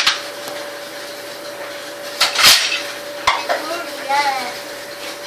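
Dishes and cutlery clattering: a few sharp clinks and knocks, the loudest about two and a half seconds in, over a steady faint tone.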